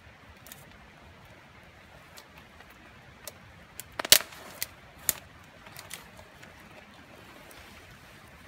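Small campfire of dry twigs and pine needles crackling as it catches, with scattered sharp pops, the loudest cluster about four seconds in.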